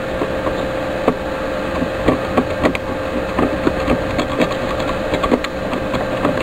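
Utility blade scratching and scraping a circuit board at a burnt trace, a run of short irregular scrapes and ticks over a steady hum. This is the copper being scratched clean so a solder jumper will make a good connection.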